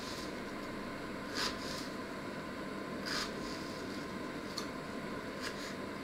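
Small kitchen knife cutting an onion on a wooden cutting board: a few soft cuts at irregular intervals over a steady background hiss.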